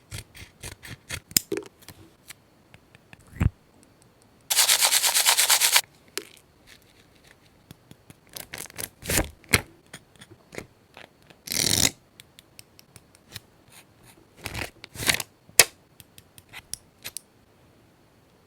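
Scrapbooking paper-craft handling sounds: scattered taps, clicks and paper rustles, with a loud rasping stretch lasting just over a second about four and a half seconds in and a shorter one about twelve seconds in.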